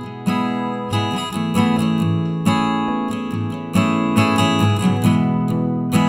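Background music of an acoustic guitar strumming chords, with no speech.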